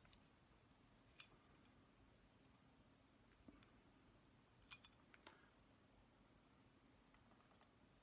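Near silence with a few faint, short clicks scattered through: pliers gently squeezing the end of a shielded CAT5e cable jacket.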